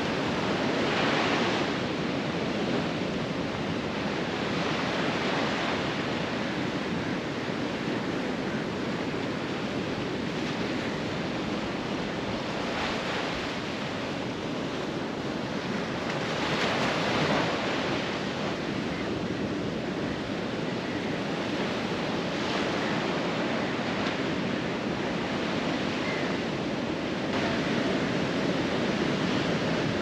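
Ocean surf breaking and washing up a sandy beach: a continuous rush that swells every few seconds as each wave comes in.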